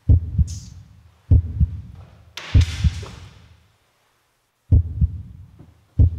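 Heartbeat sound effect: paired low thumps about every second and a quarter, pausing for about a second near the middle before starting again. A short high hiss comes just after the first beat, and a brief rushing noise over the third beat.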